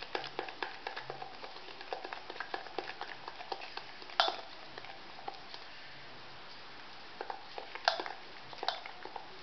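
Thick besan batter being beaten by hand in a steel bowl to make it smooth: quick wet slaps and pats, several a second, with occasional louder knocks against the bowl. The beating thins out for a couple of seconds midway, then picks up again near the end.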